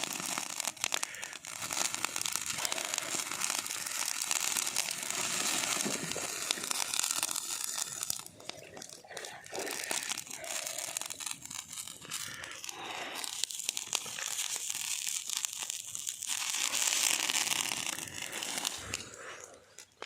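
Plastic sausage packaging crinkling and being torn open, in uneven bouts of crackly rustling, loudest early on and again near the end.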